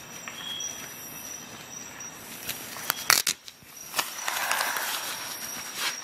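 Handling noise as a red nylon tool pouch is set down on a desk: a few sharp knocks about three seconds in, then a rasping rustle of fabric and glove near the end.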